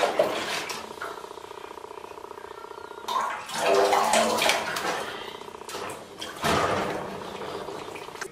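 Orange domestic cat yowling and growling in protest at being bathed, in three loud outbursts: at the start, about three seconds in, and again about six and a half seconds in. Water splashes faintly in between.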